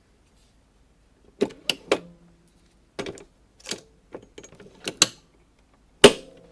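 Plastic clicks and snaps from a pod coffee machine being opened, loaded with a pod and shut. A quick run of three clicks comes first, then scattered clicks and light rattles, and near the end a single sharp, loud snap as the closing mechanism locks.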